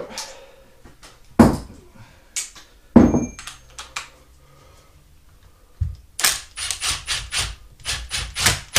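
A few loud knocks, then from about six seconds in a cordless impact driver hammering the scooter's wheel nut tight in rapid bursts.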